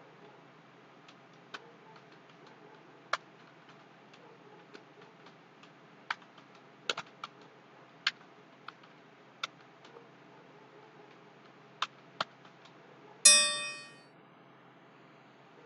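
Computer keyboard keys struck one at a time, sparse irregular clicks about a second apart. About 13 seconds in, a short, loud ringing chime that fades away within a second.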